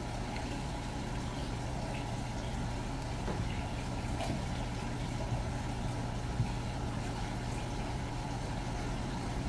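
A steady low mechanical hum, with a few faint short taps on top of it: one about three seconds in, one about four seconds in and one about six seconds in.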